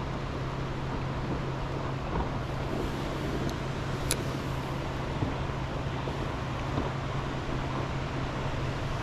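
Steady low drone of nearby boat motors over an even rushing hiss, with a single sharp click about four seconds in.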